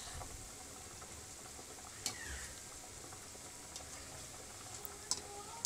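Spinach pakoras deep-frying in hot oil in a metal kadhai, a steady sizzle, with a metal slotted skimmer clinking and scraping against the pan as the fritters are turned: sharp clinks about two seconds in and again near the end.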